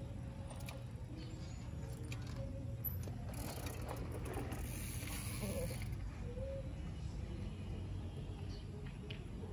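Mountain bike's freewheel hub clicking as the bike coasts, over a steady low rumble of riding noise, with a brief hiss about midway.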